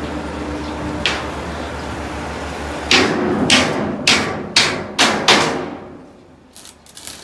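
A steady mechanical hum with a single knock about a second in. From about three seconds in come six sharp hammer blows on a welded steel tank plate, about two a second, each ringing briefly, before they die away.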